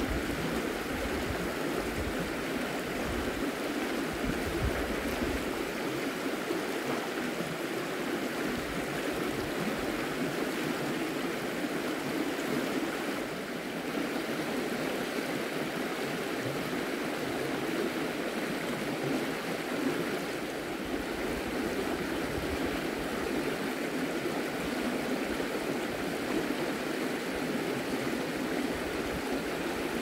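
A river flowing: a steady rushing of water.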